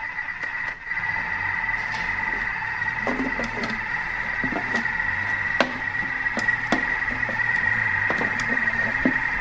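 Thermomix food processor motor running at low speed with a steady high whine while it browns minced meat. The spatula, pushed in through the lid opening, knocks and scrapes in the bowl, with sharp clicks from about three seconds in.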